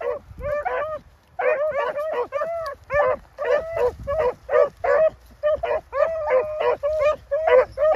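Several hounds baying in short, repeated barks, a few a second and overlapping, with a brief pause about a second in: a pack giving tongue as it runs a rabbit.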